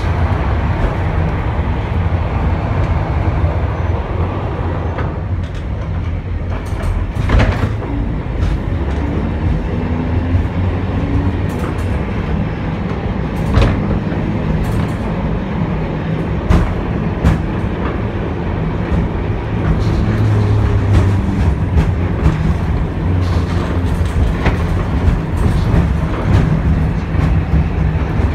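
Vintage M-24 tram heard from inside the car while running along street track: a steady low rumble of the running gear, with several sharp, irregular clicks and knocks from the wheels on the rails.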